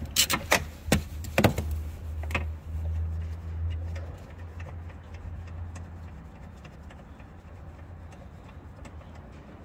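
A socket on an extension bar working loose the single 13mm bolt that holds the wing mirror inside a car door: a handful of sharp, irregular clicks and knocks in the first couple of seconds, then a faint low hum that fades away, with only light ticks after it.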